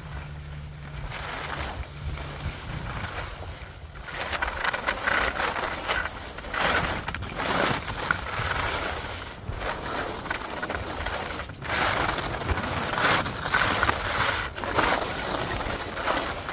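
Alpine skis scraping and carving over groomed, packed piste snow through a series of turns: a hiss that swells with each turn and breaks off briefly every two to three seconds. It starts quieter and grows louder about four seconds in.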